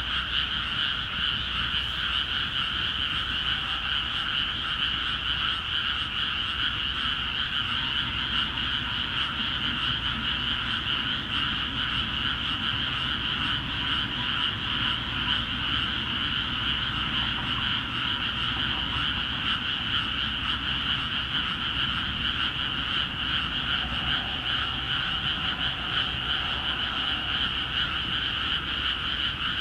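Dense chorus of many frogs calling together from flooded rice paddies, a steady, unbroken wall of croaking with no pauses.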